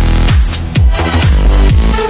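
Electronic dance music with a steady four-on-the-floor kick drum, each kick a falling bass thump about three times a second, under synth chords.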